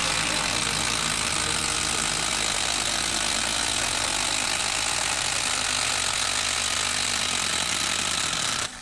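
Makita 12V impact driver hammering continuously under load, driving a long screw into a wood stump. The noise cuts off suddenly near the end.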